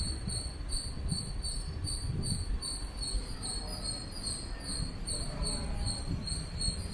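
An insect chirping in a steady, evenly repeating high-pitched pulse, over a constant low rumble of outdoor background noise.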